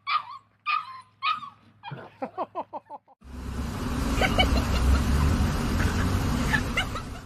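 A dog gives four short, high yips about half a second apart, then a quick run of rising whimpers. About three seconds in, these give way to a loud, steady rushing noise that stops abruptly near the end.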